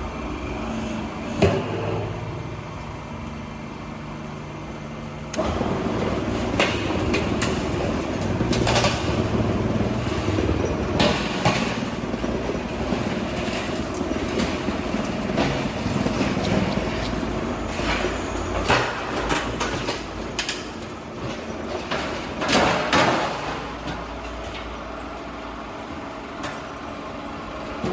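Motor-driven oil drum cutting and rolling machine running with a steady mechanical hum as it works a steel drum. The hum gets louder about five seconds in, and sharp metallic clanks and knocks come at irregular intervals.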